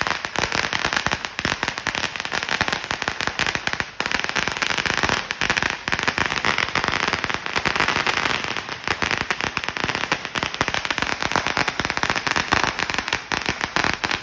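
A 16,000-shot roll of firecrackers going off in a dense, unbroken string of rapid bangs.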